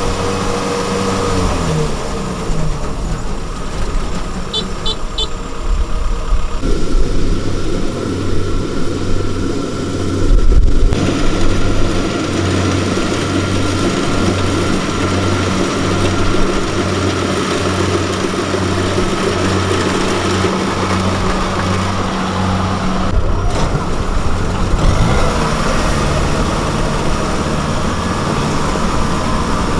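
Farm machine's diesel engine running steadily. Its pitch drops about a second in, then a low pulsing comes about once a second for a while, and it speeds up again near the end. A heavy low thump comes about ten seconds in.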